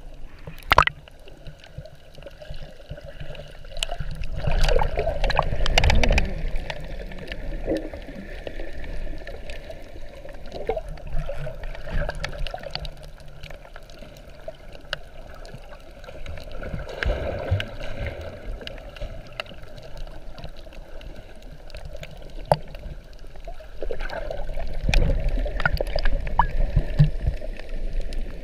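Muffled water heard through an action camera's waterproof housing held underwater: steady sloshing and gurgling with scattered sharp clicks, and louder surges of rushing water about four seconds in, in the middle and near the end.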